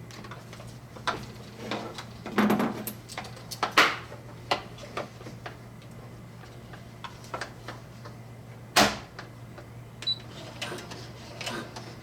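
Brother SE-400 sewing machine stitching back and forth over a seam in thick nylon ratchet-strap webbing: irregular mechanical clicks and knocks over a steady low hum, the loudest knocks about four seconds in and near nine seconds.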